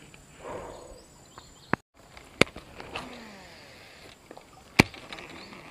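Handling of a baitcasting rod and reel: a few sharp clicks, the loudest near the end, amid soft rustling.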